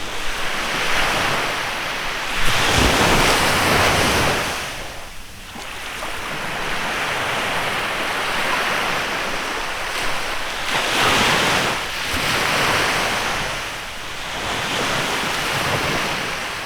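Sea waves breaking and washing up a beach in a bay, one surge after another, the loudest about three seconds in.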